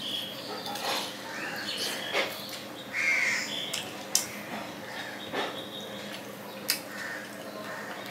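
A person eating rice and curry by hand: fingers mixing food on a plate, chewing and sharp mouth smacks. A bird calls several times over it.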